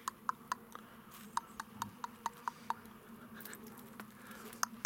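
A quick series of short, sharp clicks, about four or five a second, that stops a little under three seconds in, with one more click near the end.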